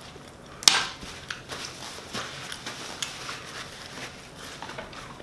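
A sharp snap or crack less than a second in, then a crumpled paper napkin rustling and crinkling as messy hands are wiped, with scattered small clicks.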